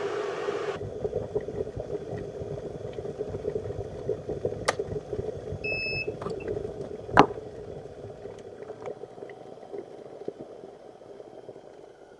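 Glass electric kettle heating water, a steady hissing rumble that slowly dies away. A short beep sounds about six seconds in, and a sharp click follows about a second later.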